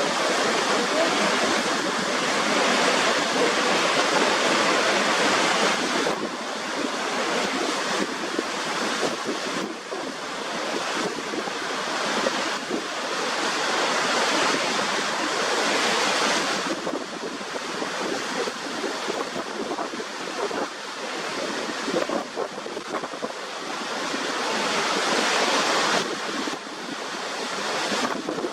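Waterfall: a steady rush of falling water, its level swelling and easing slightly every few seconds.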